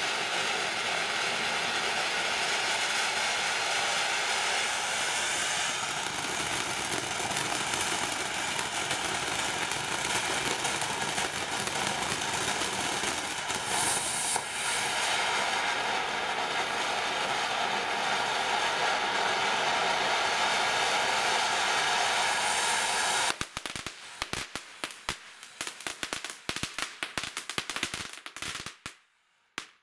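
TNT Lava Dome ground fountain firework spraying with a steady hiss for most of its run, then breaking into a string of sharp crackling pops about twenty-three seconds in that thin out and stop just before the end.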